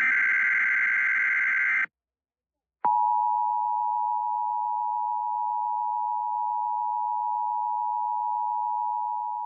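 Emergency Alert System sequence: the last of the SAME digital header bursts, a harsh data screech, ends about two seconds in, and after a second of silence the EAS two-tone attention signal (853 and 960 Hz together) starts and sounds steadily, announcing the next alert.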